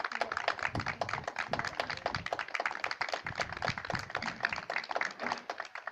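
A small group of people applauding: a dense, uneven run of hand claps.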